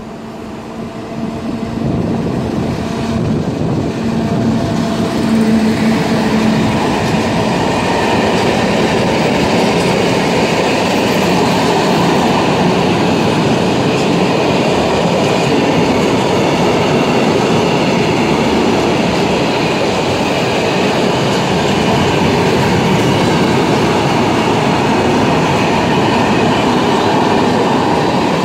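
Freight train of open wagons hauled by a 201Eo (ET22-type) electric locomotive rolling past: a steady hum from the locomotive as it comes in, then a loud, even rumble of wheels on rail with clatter from the wagons. The sound builds over the first two seconds and then holds steady.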